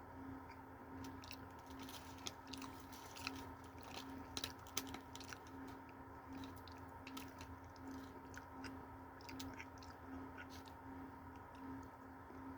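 Faint chewing and irregular mouth clicks from someone eating a glazed apple pie, over a steady low hum.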